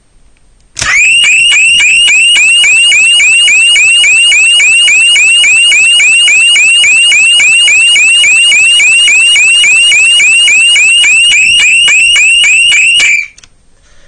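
Caradon Esser 766231 electronic fire alarm sounder going off, really loud: a rising sweep tone repeated about four times a second. It starts about a second in and cuts off abruptly about a second before the end.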